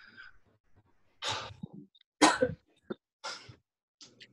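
A man exercising breathes out hard three times, about a second apart: short, noisy huffs of exertion in a workout.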